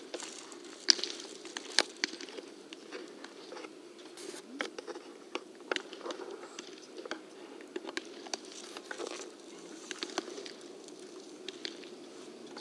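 Baseballs smacking into leather gloves as several pitchers play catch: sharp pops at irregular intervals, some loud and close, others faint, over a steady low hum.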